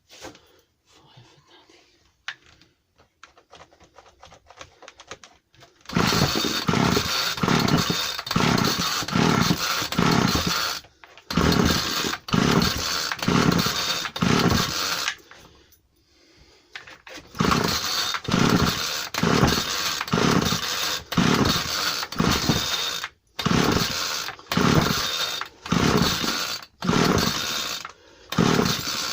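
JCB M25 strimmer's small two-stroke petrol engine being pull-started again and again. It fires in loud stuttering runs of pulses about half a second apart and stops between attempts, a few seconds at a time, as it is being brought back into running after a pull-cord repair.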